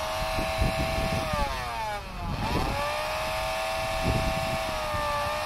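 Electric blower motor whining at high speed. About a second and a half in it winds down in pitch, then spins back up a second later as its wired switch is worked, and it dips briefly again near the end.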